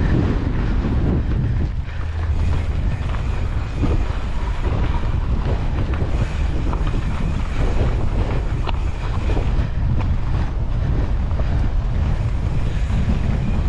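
Wind rushing over the camera's microphone as a mountain bike rides a rocky dirt trail, with the tyres and bike giving frequent short clicks and knocks over the rock.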